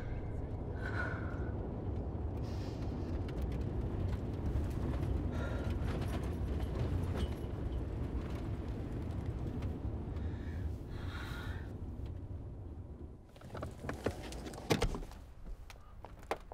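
Car interior drone of an SUV driving, a steady low rumble that stops about thirteen seconds in as the car comes to rest. A few clicks and clunks follow near the end, typical of a car door latch and door.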